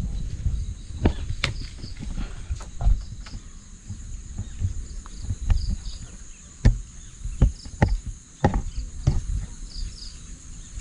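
Irregular knocks, bumps and scrapes of a man climbing a tree trunk, gripping the bark, over a steady high hum of insects such as crickets.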